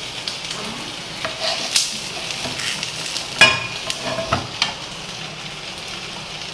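Banana-leaf-wrapped fish parcels sizzling in a hot pan while metal spoons scrape and clink against the pan as they are lifted out, with one sharp ringing clink about halfway through.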